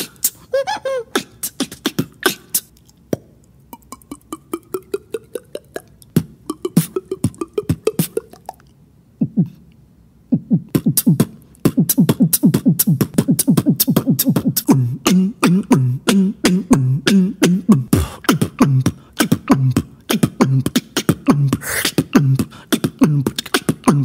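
Solo beatboxing made with the voice alone: mouth clicks, then a run of short water-drop bloops sliding in pitch, then a dense beat with low pitched drum-like hits, vocal imitations of water, a heartbeat and bongo drums.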